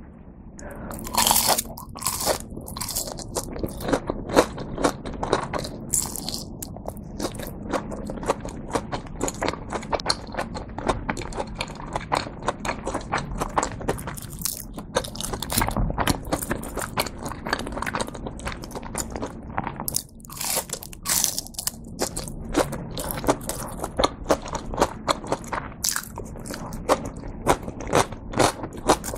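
Bites and chewing of a crispy breaded cheese tonkatsu (fried pork cutlet): a loud crunch of the breadcrumb crust about a second in, then steady crisp crunching as it is chewed.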